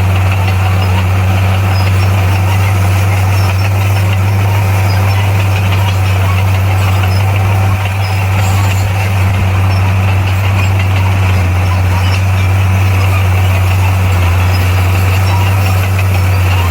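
Bulldozer's diesel engine running steadily, a loud, unchanging low drone.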